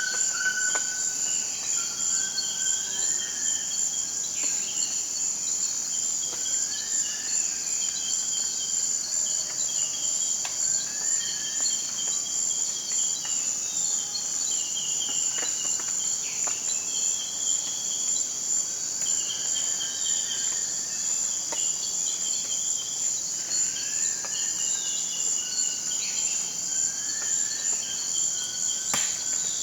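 Forest insect chorus: a dense, steady high-pitched drone, with short rising calls and repeated short notes from other animals recurring every second or two over it.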